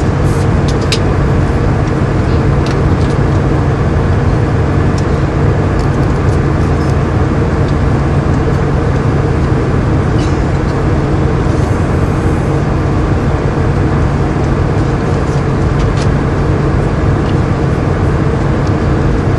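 Steady roar of jet engines and rushing air heard inside an airliner's cabin, with a low hum underneath.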